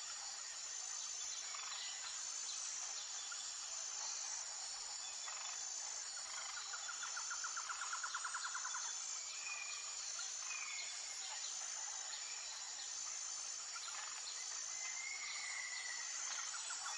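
Background ambience of insects chirring steadily at a high pitch, with a rapid trill about six seconds in and again near the end, and a few short bird chirps.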